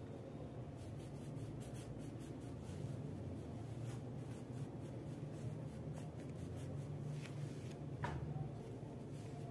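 Wax crayon scratching on paper in short, irregular colouring strokes, over a steady low hum.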